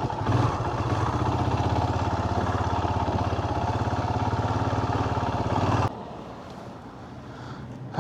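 Royal Enfield Himalayan motorcycle engine running at low revs in second gear, pulling up a steep dirt climb with a steady, even pulse. About three-quarters of the way through the sound drops off suddenly to a much quieter background.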